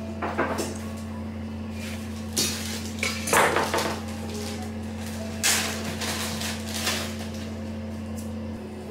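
A spatula scraping and clinking against a mixing bowl in several short bursts as financier batter is scraped into a piping bag, over a steady low hum.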